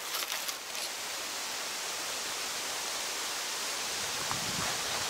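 Wind rustling steadily through the yellow leaves of birch crowns, an even hiss, after a short rustle of dry fallen leaves in the first second.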